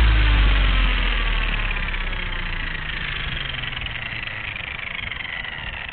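Blade 230S electric RC helicopter's motor and rotor spooling down after landing. A falling whine fades steadily as the blades slow, heard through the helicopter's onboard camera.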